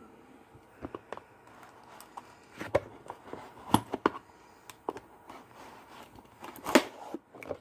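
A cardboard box being opened and handled, with tape being dealt with: scattered irregular knocks and rustles, the loudest a sharp knock about seven seconds in.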